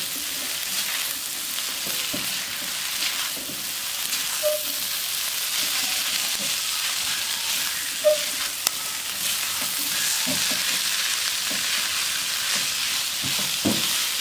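Stir-fry of long beans, noodles and egg sizzling in a wok over a lowered flame, with a spatula scraping and tossing the food against the pan. A few sharper knocks of the spatula on the wok stand out, one about halfway through and one near the end.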